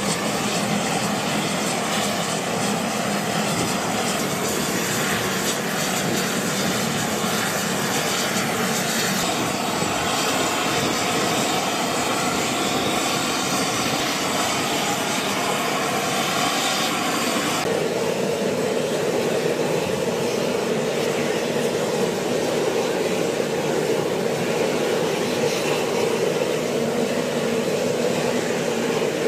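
MV-22B Osprey tiltrotor's turboshaft engines and proprotors running loudly and steadily. About eighteen seconds in, the sound changes abruptly and becomes duller and lower.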